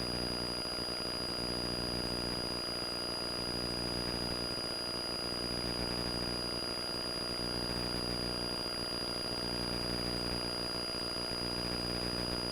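Cessna 172 piston engine and propeller droning steadily at climb power inside the cabin, with a steady high whine running alongside.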